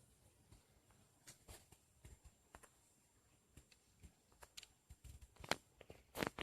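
Faint, irregular clicks and taps against near silence, coming more often and a little louder toward the end.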